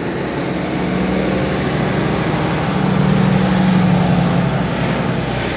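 City street traffic, with a large vehicle's engine running close by; its low hum grows louder about three seconds in and eases off near the end.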